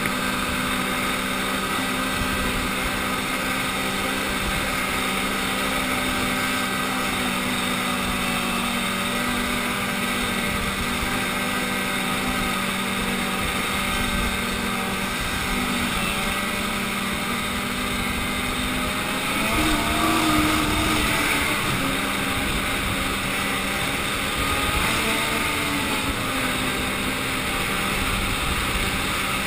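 Ski-Doo snowmobile engine running at a steady cruising speed, with wind rumbling on the microphone. The engine note rises and falls back briefly twice, about two-thirds of the way through.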